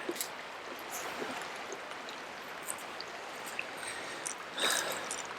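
Steady rush of flowing river water, with a few small clicks and a short rustle about four and a half seconds in.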